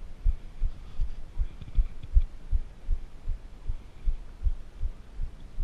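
Low, regular thumping about three times a second: a fast heartbeat after riding, picked up through a chest-mounted camera, under a faint hum.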